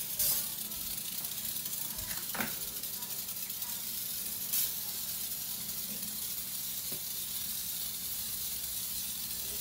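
Aerosol can of Easy-Off oven cleaner spraying in one long steady hiss, briefly louder twice.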